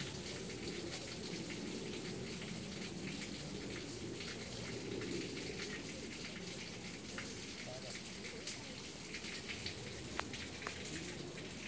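Pond water splashing and trickling, a steady patter of many small splashes, where carp and goldfish churn the surface.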